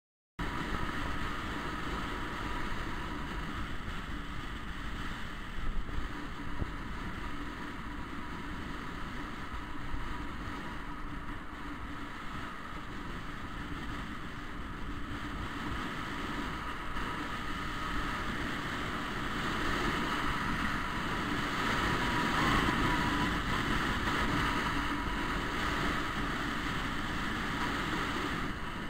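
Wind rushing over the microphone and road noise from a scooter riding along a street, with a faint steady whine. It grows somewhat louder about two-thirds of the way through.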